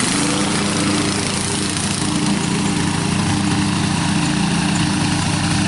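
Old Murray riding lawn mower's engine running steadily under load while the mower cuts grass with its newly levelled deck.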